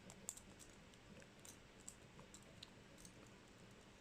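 Faint, scattered clicks of a Swiss Army knife's toothpick being worked in the keyway of a padlock, probing the pins.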